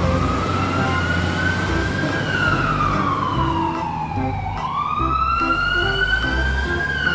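Wailing siren, the slow fire-truck kind: its pitch climbs, sinks over a couple of seconds, jumps back up and climbs again, over low background music.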